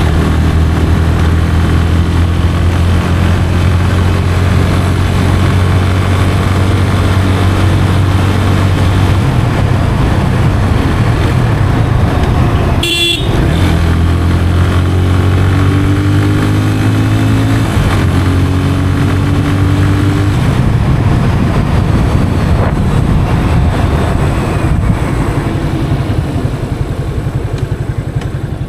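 Yamaha FZ 25's 249cc single-cylinder engine running under way through its stock exhaust, a steady low note. About 13 s in there is a short horn toot, after which the engine note climbs in steps for several seconds, then eases off towards the end.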